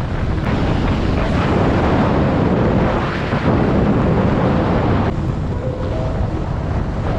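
Heavy wind buffeting the microphone of a camera on a moving motorcycle at road speed, with the bike's engine running underneath. The wind noise eases slightly about five seconds in.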